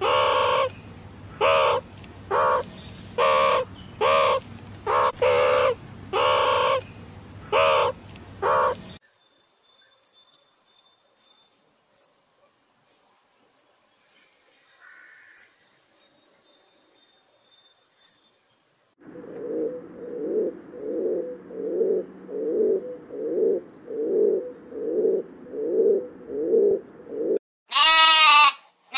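A string of animal calls: about a dozen loud pitched calls, then a run of rapid high-pitched chirps from a common kingfisher, then an even series of lower calls about one and a half a second. A sheep bleats briefly near the end.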